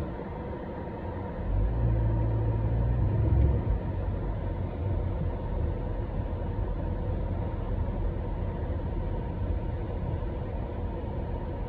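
A motor vehicle's engine rumbling close by. It swells louder from about one and a half seconds in until nearly four seconds, then settles into a steady low rumble.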